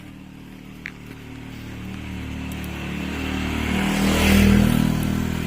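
A motor vehicle approaching and passing close by, its engine growing steadily louder to a peak about four and a half seconds in, then beginning to fade.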